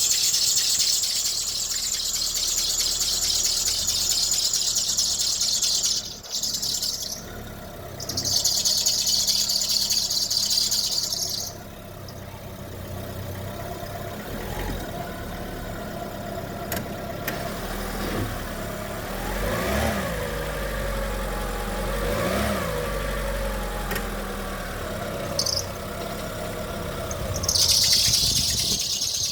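Chevrolet Cobalt making a high-pitched squeal in long stretches, with a short break, then gone for most of the middle and back again near the end. While the squeal is away, the engine is heard rising and falling in pitch twice.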